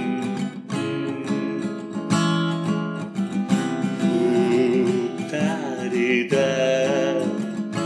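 Acoustic guitar strumming chords, a song's accompaniment played between sung lines, with a fresh strum about every second and a half.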